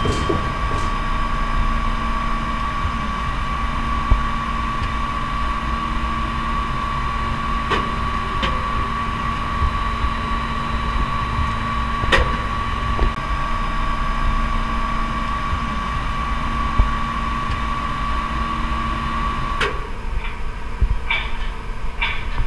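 Steady machine hum with a high, even whine inside a tower crane's operator cab, with a few sharp clicks. The whine cuts off with a click near the end.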